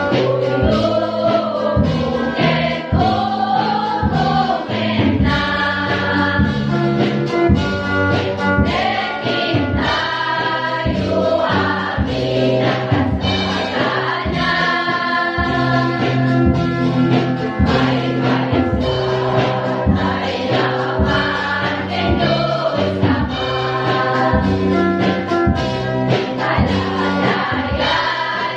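Mixed youth choir of young men and women singing a gospel song together over instrumental accompaniment with a steady beat.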